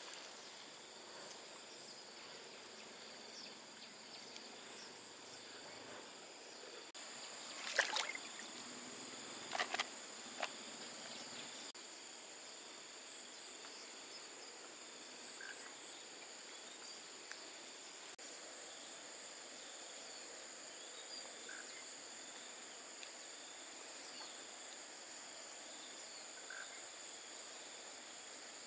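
Insects calling in a steady high-pitched drone, one voice pulsing about once a second, over a faint outdoor hiss. About a third of the way in, a few short sharp noises stand out as the loudest sounds.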